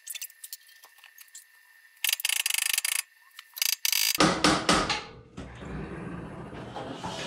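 Cable dump-bed hoist of a 1944 Ford grain truck being released. It gives three short bursts of rapid ratcheting clicks, then from about four seconds in a louder rumbling, grinding run that eases into a steady hiss.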